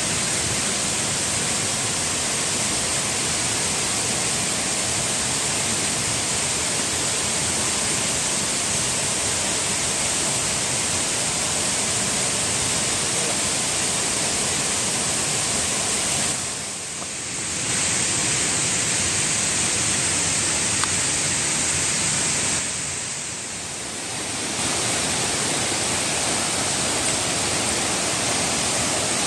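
Waterfall rushing in a steady roar, dropping briefly in level twice, about seventeen and twenty-three seconds in.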